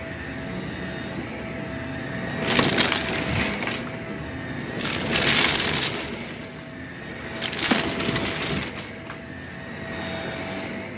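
Upright vacuum cleaner running with a steady motor hum over shag carpet, sucking up dry flaky debris that crunches and rattles through it in three loud surges as the head is pushed through the piles.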